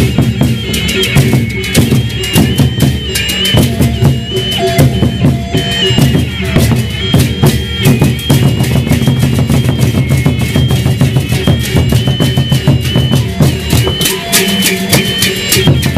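Sasak gamelan ensemble music of the kind played for peresean: drums beaten in a fast, dense rhythm with metallic percussion, under a high, stepping wind melody.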